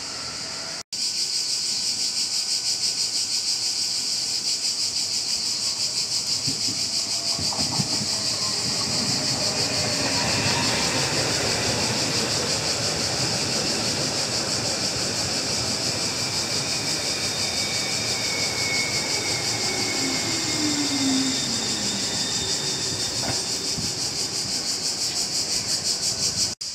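Trenitalia TPER ETR 350 (Stadler FLIRT) electric multiple unit arriving and braking to a stop. Its wheels rumble on the track and a whine falls in pitch as it slows. Over it all is a steady high buzz of summer insects.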